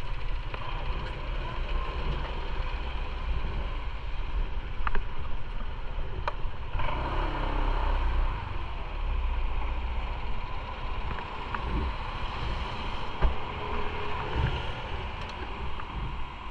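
Motorcycle engine running with a steady low rumble under an even rush of noise, broken by a few short knocks.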